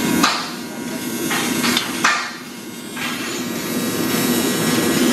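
A few sharp hammer strikes in the first two seconds, then steady shop noise alone.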